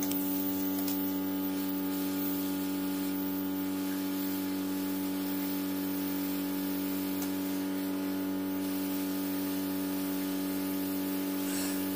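Hot-air SMD rework station blowing to desolder an 8-pin regulator IC from a circuit board: a steady hum with an even airy hiss.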